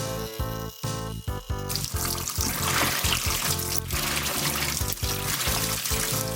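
Water spraying and splashing inside a washing appliance, starting about two seconds in, under background music with a steady beat.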